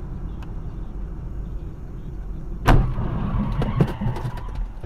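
Steady road and engine rumble inside a moving car. About two and a half seconds in, a car collision breaks in: a loud sudden impact, then a second or so of crunching and rattling metal and debris.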